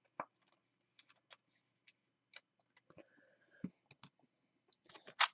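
Faint, scattered clicks and taps of trading cards and a foil card pack being handled on a tabletop, with a soft knock about three and a half seconds in and a sharper click just before the end.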